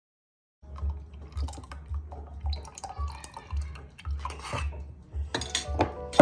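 Kitchen clatter: dishes and utensils clinking and knocking over a steady low hum, starting about half a second in.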